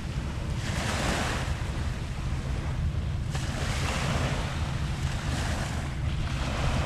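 Small waves washing in on a beach, a hissing wash that swells about a second in and again around four seconds in, over a steady low rumble of wind buffeting the microphone.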